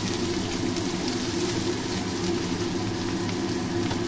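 Sliced onions frying in hot oil in a kadai, over a steady low mechanical hum.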